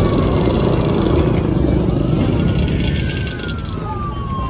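Quad bike and dirt bike engines running in a crowded lot, under a police siren wailing, its pitch sliding slowly down through the second half.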